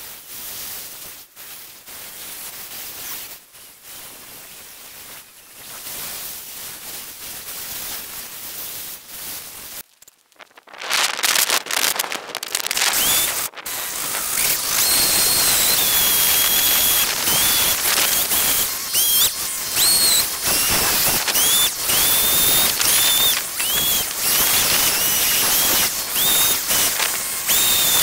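A small carving chainsaw starts up about eleven seconds in and runs loud at high revs. Its whine rises and dips over and over as the tip cuts detail into a fresh pine log. Before that there is only quieter, even background noise.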